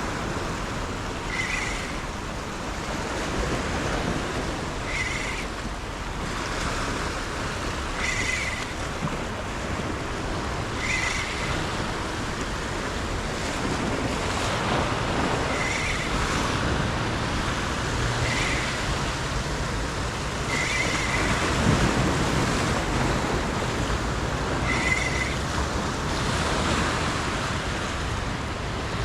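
Ocean surf washing steadily, with wind on the microphone and a short high chirp every few seconds.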